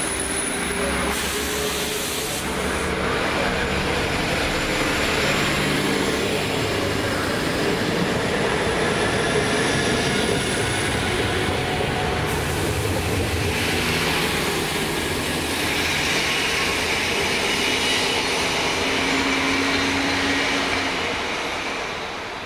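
Two coupled PESA SA132 diesel railcars pulling out of the station and passing close by, their diesel engines running under load with the rumble of wheels on the rails. The sound fades near the end as the train moves away.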